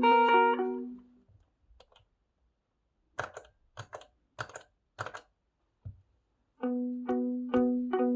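Electric guitar played through a pedalboard with a Strymon Brigadier delay. A picked note pattern with echoing repeats dies away in the first second. After a short pause come several muted, scratchy strums. About two-thirds of the way in, a repeating picked figure with delay repeats starts again.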